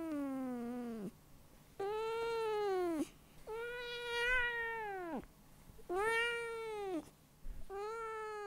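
A cat meowing over and over in long, drawn-out meows, one about every two seconds, each rising and then falling in pitch.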